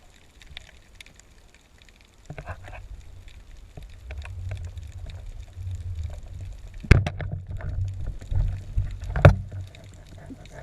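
Water sloshing and rumbling against the camera, with two sharp knocks.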